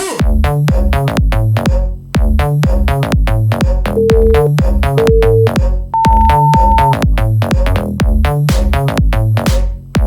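Electronic dance music with a steady drum-machine beat. About four seconds in, two short beeps are followed by a longer, higher beep, the countdown signal of an interval timer.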